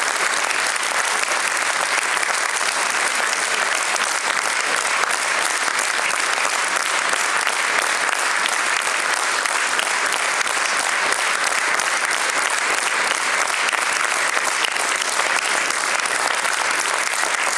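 Audience applauding steadily, many hands clapping at an even level.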